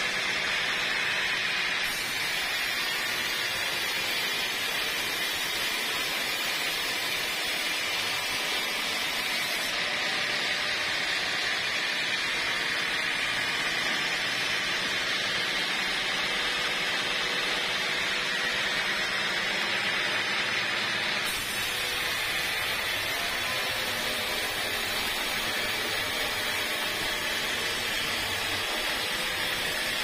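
Band sawmill blade cutting lengthwise through a dry teak log: a steady, hissing rasp of the blade in the wood at an even level.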